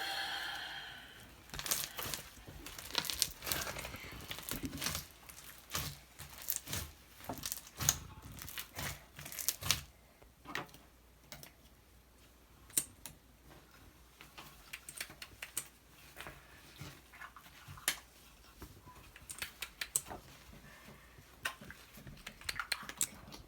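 Homemade slime being squeezed and kneaded by hand, giving irregular wet crackles and pops, dense at first and sparser in the second half.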